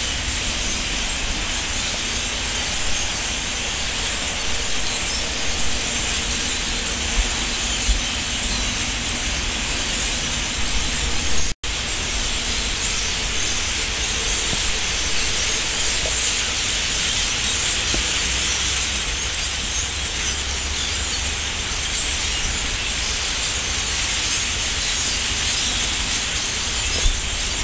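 Huge flock of dark songbirds calling all at once, a dense, steady, hiss-like din of countless overlapping chirps. The sound cuts out for an instant a little before the middle.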